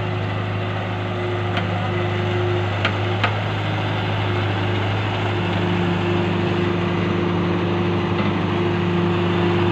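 John Deere 595D wheeled excavator's diesel engine running steadily while it digs a trench, with a steady drone and a higher tone that grows stronger about halfway through. A few short sharp knocks sound around two to three seconds in.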